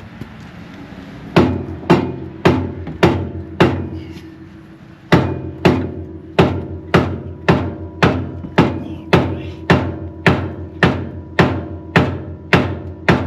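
Homemade lead hammer striking a seized steel part on a backhoe's steering, about two heavy blows a second, each with a brief metallic ring. Six blows, a short pause, then a long steady run of about fifteen more, as he tries to break the part loose.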